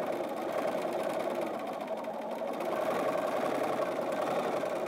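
Bernina 550 sewing machine stitching steadily in free-motion quilting, a fast, even run of needle strokes. Its speed is set by the Bernina Stitch Regulator, which follows how fast the quilt is moved.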